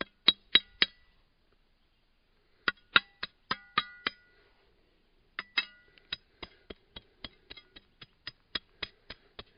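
Metal hand digging tool tapping and chipping at a dug plug of soil, a quick run of sharp metallic clinks about four a second, some with a short ring. The clinks stop for a moment and then start again.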